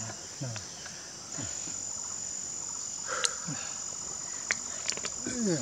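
Insect giving a steady, high-pitched, continuous trill, with a few brief low sounds and clicks over it.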